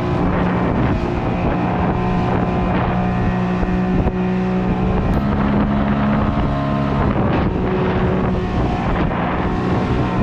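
Outboard motor running steadily under load, driving a small open fishing boat through rough chop, with water rushing and spraying off the hull and wind buffeting the microphone.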